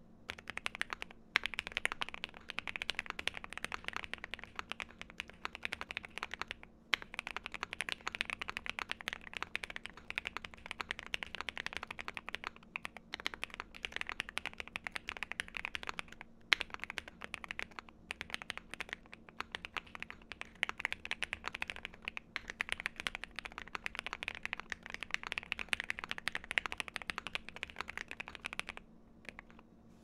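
Fast, continuous typing on an OwLabs Mr. Suit custom mechanical keyboard with lubed, TX-filmed JWK Moss switches in a POM plate, GMK Botanical keycaps and a foam- and tape-modded case: a dense run of key clacks with a few brief pauses. The typing stops about a second before the end.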